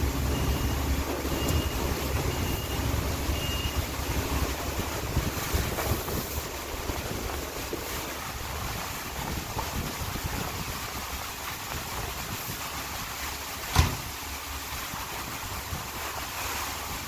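Steady rumbling hiss with wind on the microphone. The low rumble is strongest over the first few seconds, and a row of short, high, evenly spaced beeps sounds during that time. One sharp knock comes about fourteen seconds in.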